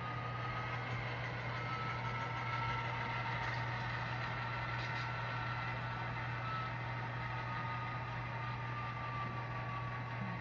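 SoundTraxx DCC sound decoder in an HO-scale model diesel locomotive playing a steady diesel engine idle through its small onboard speaker.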